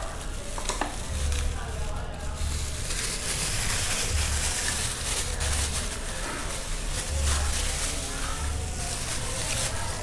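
Packaging rustling and crackling continuously as small silk-dome tweeters are unpacked and handled.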